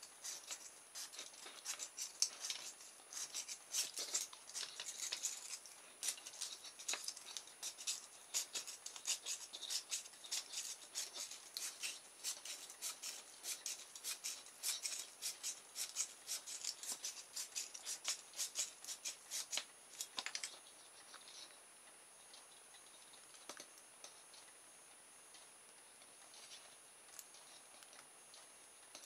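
Enameled copper wire being wound by hand onto a small plastic motor-kit armature: a dense run of dry, scratchy ticks and clicks as the wire is pulled around and rubs over the plastic. The ticking stops about two-thirds of the way through, leaving only a few faint clicks.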